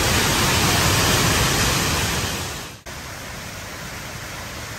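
Jewel Changi Airport's Rain Vortex indoor waterfall: water falling steadily from the roof into its basin, heard as a steady, even rush of noise. Just under three seconds in it drops out for a moment, then goes on more quietly.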